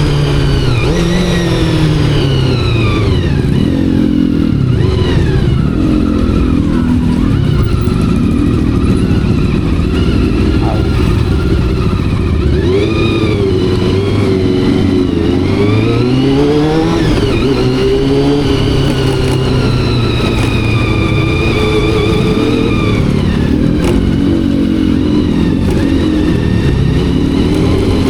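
Honda CBR400RR's carbureted inline-four engine and exhaust under riding load, revving up through the gears and dropping back again and again as the pitch climbs and falls with each shift and roll-off. The carburetors are freshly cleaned and synchronized.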